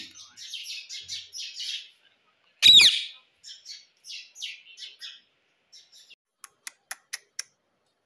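Indian ringneck parakeet chattering in quick high bursts, with one loud call with a bending pitch about two and a half seconds in, then softer chatter. Near the end comes a quick series of about six sharp clicks.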